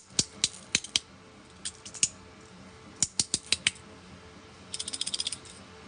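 Magnetic fidget toy's pieces snapping together and pulling apart: a series of sharp clicks, singly and in small clusters, ending in a quick rattling run of clicks. Faint background music underneath.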